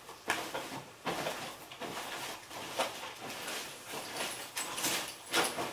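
Irregular rustling of clothes and bedding with soft knocks as a person moves about and climbs onto a bed, a louder rustle near the end.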